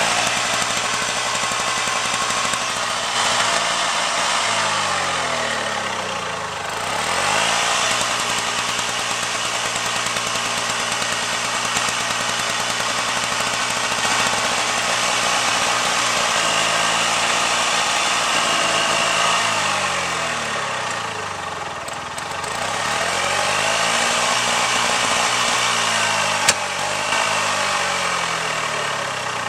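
Two-stroke snowblower engine running with the choke on just after a pull start. Its speed sags and recovers three times, with a sharp click near the end.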